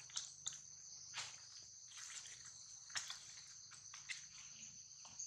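A steady, high-pitched insect chorus, with a few short crackles and rustles of dry leaves as monkeys handle and move over them.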